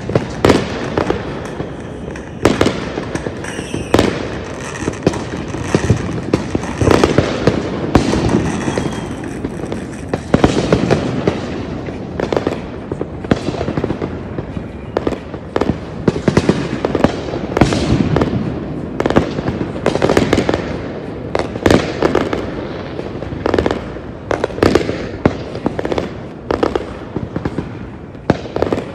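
Aerial fireworks display: shells bursting in a steady barrage of sharp bangs, about one every second or two.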